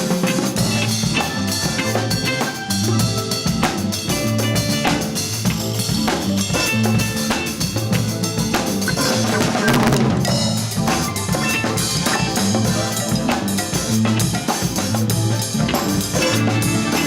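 Latin fusion band playing, with a drum kit's kick, snare and rimshots driving the beat over a moving bass line.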